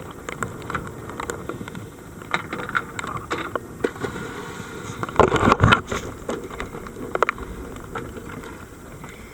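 Scattered knocks and clatter over a steady low rumble, with a louder burst of knocks about five to six seconds in.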